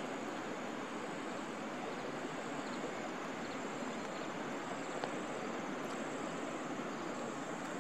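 Steady outdoor ambience: an even rushing hiss with no distinct events.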